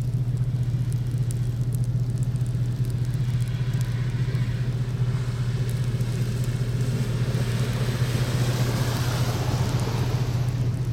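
A car passes, its engine and tyre noise building over several seconds and dropping away near the end, over a steady low hum.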